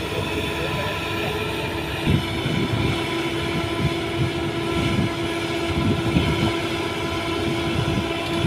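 Doosan DX225LCA hydraulic excavator's diesel engine running steadily under load as its bucket presses bamboo stakes into soft peat ground, with a few irregular dull knocks.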